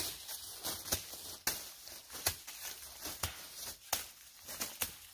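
A hand blade chopping dry corn stalks close to the ground: about eight short, sharp strikes at uneven intervals.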